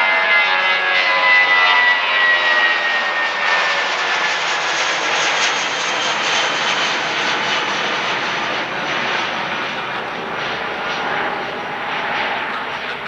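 Airbus A319 jet engines at takeoff power passing by: a whine that slides down in pitch over the first few seconds, then a steady roar that slowly fades.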